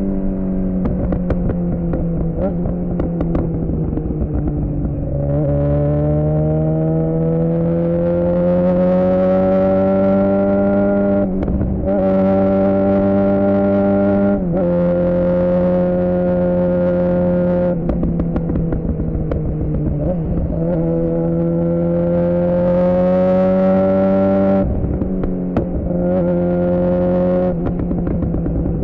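2007 Suzuki GSX-R600 inline-four sport bike engine through a Yoshimura R11 exhaust, under way and accelerating. The pitch climbs and breaks off briefly several times as it shifts up through the gears, then drops as it eases off and pulls again.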